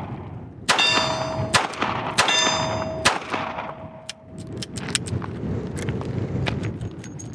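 A .38 Special snub-nose revolver firing about five shots, unevenly spaced, over the first five seconds. After the early shots comes a long metallic ringing, like a steel target being hit, which fades out near the middle.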